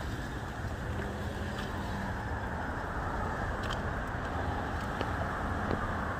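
Steady road-traffic noise, an even rumble with a few faint ticks.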